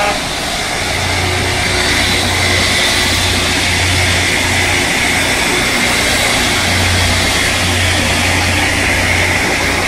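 Loram rail grinding machine running past with its grinding stones on the rail, a loud, steady grinding hiss over the low drone of its engines.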